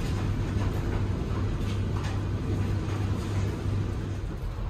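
Running noise heard inside a moving passenger train coach: a steady low hum and rumble under an even background noise.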